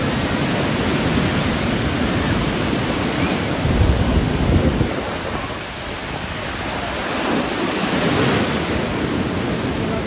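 Small waves breaking and washing up the shallows of a sandy beach in a steady rush of surf, with a louder low surge about four seconds in and another wash building around eight seconds.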